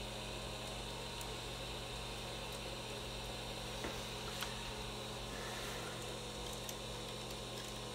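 Steady electrical mains hum with fan-like room noise. Two faint small clicks come about four seconds in.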